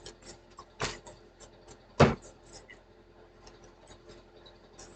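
Two short knocks, the second about a second later and louder, with faint small clicks and handling noise between them.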